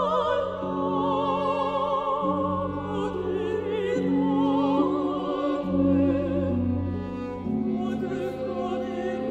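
Soprano and mezzo-soprano voices singing a classical duet in French with vibrato, over sustained organ chords that shift every second or two.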